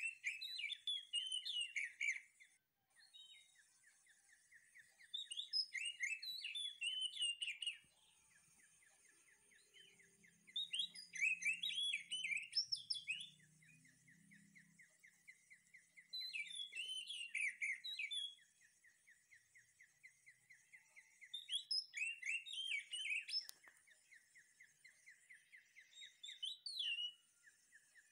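A songbird singing repeated phrases of quick chirps and whistles, each about two seconds long and coming roughly every five seconds, over a steady high buzz and a fast, even ticking.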